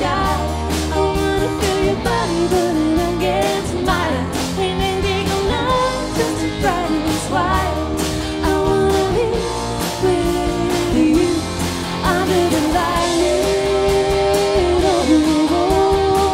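Live band playing a rock-pop song: drum kit, bass guitar, strummed acoustic guitar and electric guitar, with a sliding melody line over the band.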